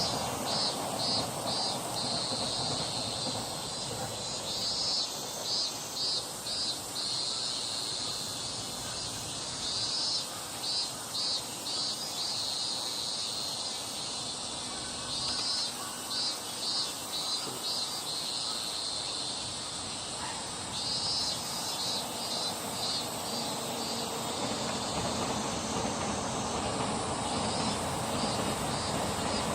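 An insect chirping in phrases of five or six quick pulses, repeating every five or six seconds, over a steady distant rumble.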